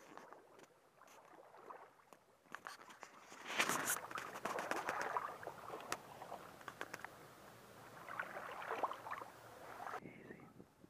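Footsteps wading through shallow creek water: irregular splashing and sloshing with small clicks, quiet at first and louder from about four seconds in.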